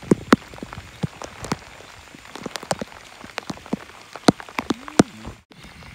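Heavy rain falling, with sharp, irregular taps of raindrops striking close to the microphone over a steady hiss. The sound cuts out for a moment near the end.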